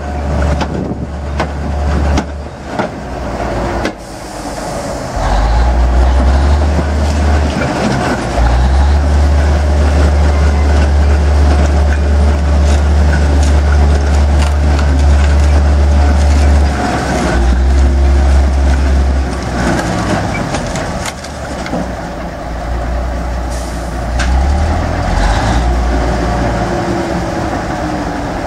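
Engine of an old lattice-boom crawler crane running as the crane travels on its tracks, with a heavy low rumble that swells and drops in long stretches. Scattered metallic clanks run through it, and the engine pitch slides near the end.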